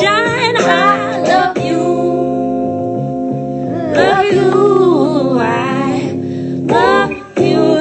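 Music playing: a song with singing over held instrumental notes, with a short break in the sound near the end.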